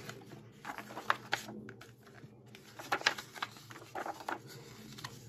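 Pages of a hardcover art book being turned and handled: a few short rustles of thick paper.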